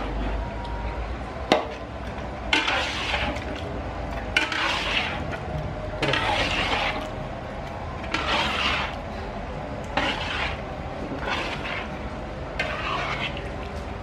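A metal spatula stirring chicken pieces through thick, wet soy sauce in a large metal wok. It makes a wet scraping swish about every one and a half to two seconds, with a few sharp knocks of the spatula against the pan.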